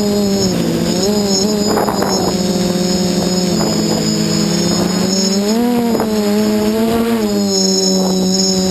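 Quadcopter's four SunnySky 2216 800KV brushless motors spinning 8x4.5 carbon props in flight: a steady droning hum with a high whine on top. Its pitch dips about half a second in and rises again around five and a half seconds in as the throttle changes, with a few short rushes of noise.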